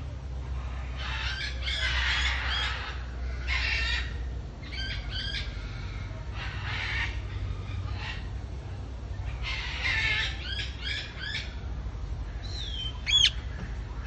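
Rose-ringed parakeets squawking: harsh screeching calls in repeated short bouts, with a sharp whistled note near the end, the loudest sound.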